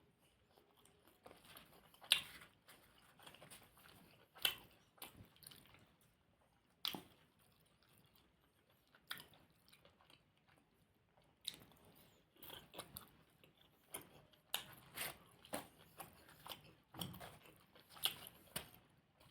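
Close-up chewing and wet mouth clicks of someone eating puri with alu dum. Sharp smacks come every two or three seconds at first, then more quickly in the second half.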